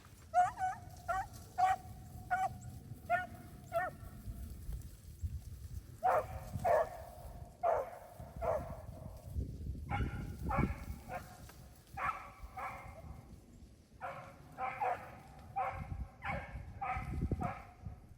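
Beagles barking: runs of short, pitched barks in four bursts with brief pauses between, over wind rumbling on the microphone.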